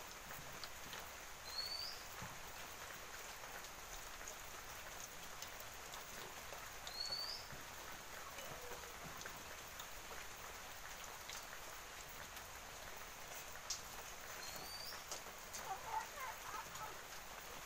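Faint, steady sizzling of palmyra-fruit (thal kavum) sweets deep-frying in hot oil in an aluminium pan, with a few clicks of the slotted spoon against the pan near the end. A bird gives a short rising chirp three times.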